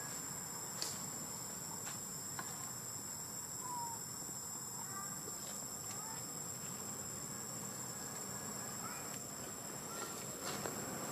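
Steady high-pitched drone of insects, with a few faint short chirps and light clicks now and then.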